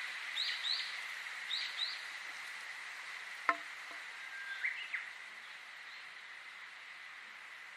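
Small birds chirping in quick repeated notes through the first two seconds, over a steady high insect drone. A sharp click comes about three and a half seconds in, then one more rising chirp, after which only the insect drone goes on.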